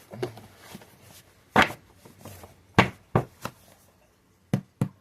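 A series of short, sharp knocks and clacks from hard objects being handled and set down, about six in all, the loudest about a second and a half in and just before three seconds, with a quick pair near the end.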